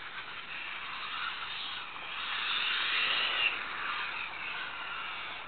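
Team Associated B44 1/10-scale 4WD electric RC buggy driving: a hissy whine of motor and drivetrain whose pitch rises and falls with the throttle, swelling louder about two to three seconds in.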